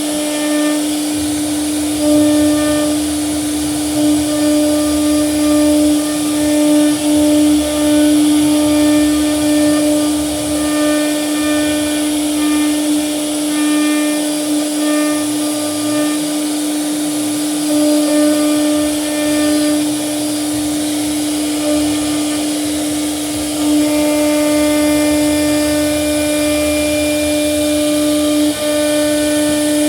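CNC router spindle running with a steady whine while the bit cuts wood. The cutting noise and some upper overtones come and go as the tool moves through the work.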